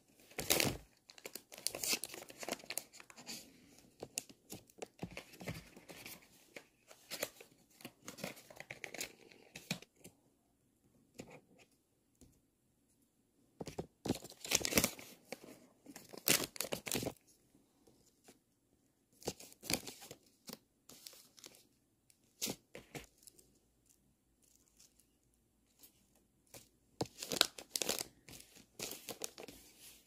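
Plastic and foil packaging crinkling and tearing as watch straps are unwrapped and handled, in irregular bursts of rustling with quiet gaps between.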